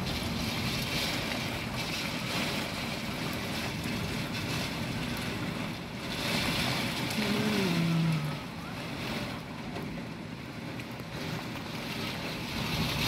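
Typhoon wind and heavy rain beating on a window, a steady rushing noise that swells louder in gusts, with a short falling tone about seven seconds in.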